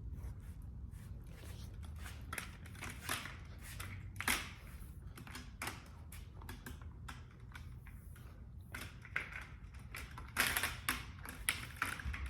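Slow, uneven footsteps in an orthopaedic walking boot: scattered clicks and knocks, with a denser cluster near the end, as weight is put on a foot healing from Achilles tendon repair.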